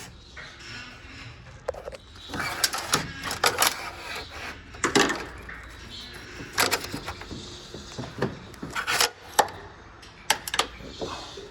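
Irregular clicks, clacks and knocks of hand tools and metal parts working on a van door's latch and handle assembly.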